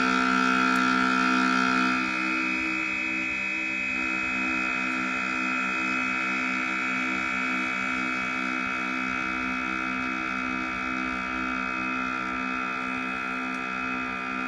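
5U modular synthesizer sounding a sustained drone of several steady tones. About two seconds in it gets a little quieter and the lower tones start pulsing in an even rhythm.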